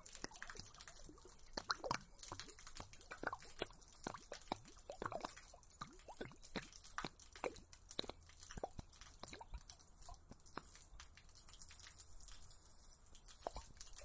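Liquid gurgling and dripping: an irregular run of small plops and bubbly blips, several a second.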